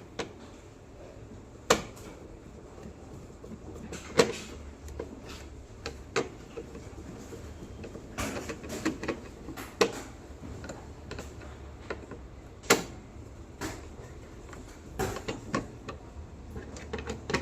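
Scattered sharp clicks and knocks at irregular intervals, over a low steady hum.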